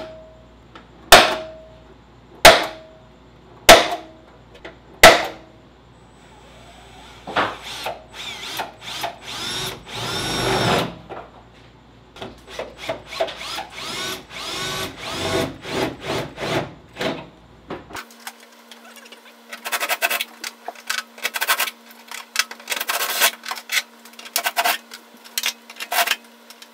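Five sharp metallic center-punch strikes on a car's sheet-metal floor pan, about 1.3 s apart, each with a short ring. Then a cordless drill with a step drill bit cutting through the sheet metal, uneven, with a brief whine around ten seconds in. After a cut at about 18 s, a fast run of clicks and scraping.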